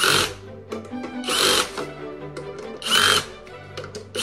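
Cordless drill-driver run in short bursts, driving screws into a pine furniture frame. There are several brief whirs about a second and a half apart, over background music.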